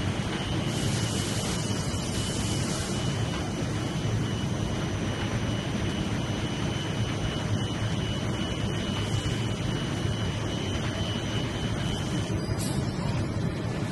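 Steady running noise of an NBR/PVC foam insulation sheet production line, with a constant thin high whine over it. A burst of hiss comes about a second in and lasts a couple of seconds, and a shorter one comes near the end.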